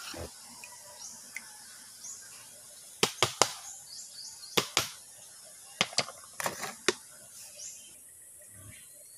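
A series of sharp clicks and knocks in short clusters, a few about three seconds in and more between about four and a half and seven seconds, over a steady faint hiss.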